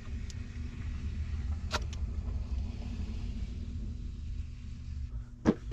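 A motor vehicle engine idling, a steady low rumble with a faint hum, and a single sharp knock about two seconds in.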